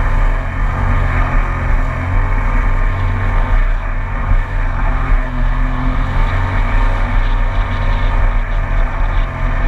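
2019 Yamaha EX WaveRunner's three-cylinder engine and jet drive running at a steady cruise, a continuous low hum with only small rises and falls.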